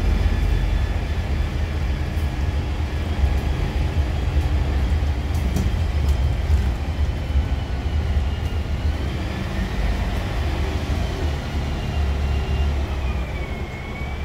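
Interior sound of a Scania Citywide LF CNG city bus under way: a steady low engine and road rumble, with a faint high whine that slides down and back up near the end.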